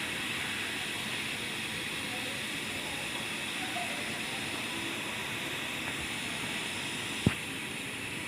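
Steady hiss, with a single sharp click about seven seconds in.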